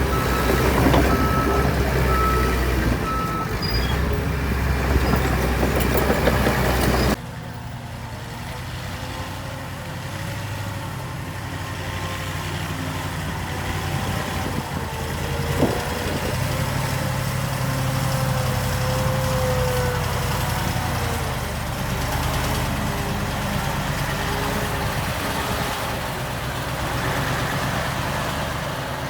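Diesel engines of heavy earthmoving machines running, with a backup alarm beeping at an even pace for the first few seconds. About seven seconds in the sound cuts abruptly to a quieter engine running steadily, with a single click midway.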